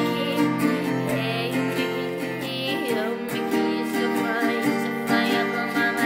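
Background music: a song with strummed acoustic guitar and a singing voice.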